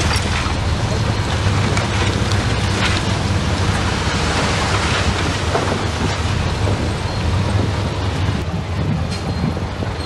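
Komatsu bulldozer's diesel engine running steadily, with a continuous rushing hiss over it.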